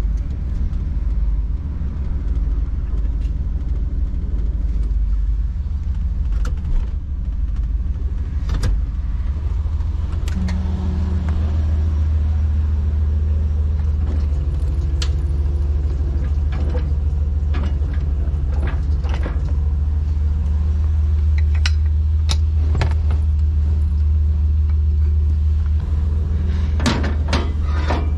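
Tow truck's engine running steadily, a constant low rumble, with scattered clicks and metal knocks, several in quick succession near the end.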